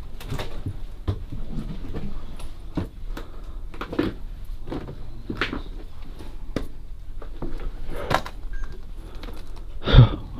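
Footsteps on bare stairs and debris: irregular knocks and scuffs about once or twice a second, with a louder thump near the end.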